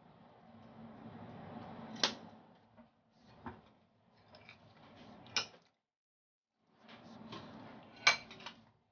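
Metal spoon stirring chicken pieces in marinade in a ceramic bowl, with four sharp clinks of the spoon against the bowl.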